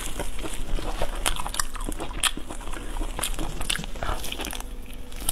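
Close-miked biting and chewing of braised meat: a quick, irregular string of sharp smacks and clicks from the mouth.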